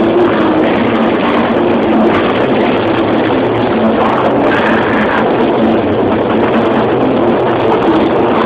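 Deathcore band playing live: heavily distorted guitars and drums in a dense, steady wall of sound with no pauses.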